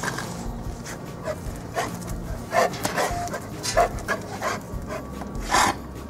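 Dogs barking: about six short, separate barks, the loudest near the end.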